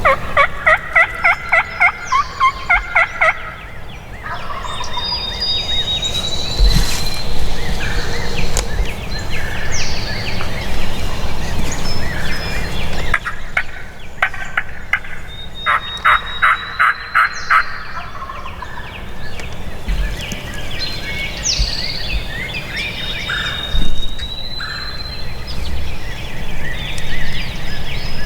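Turkey calling: two runs of about ten quick, evenly spaced notes, a few seconds in and again around the middle, with small songbirds whistling between them.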